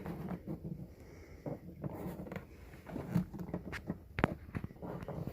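A small tool scraping and clicking against the spring clip that holds the window crank on a truck door panel, with one sharp click about four seconds in.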